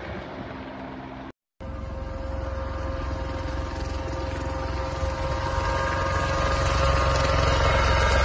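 Helicopter rotors and turbine whine, growing steadily louder as the helicopter approaches. A brief break to silence about a second and a half in separates it from a fainter helicopter sound before.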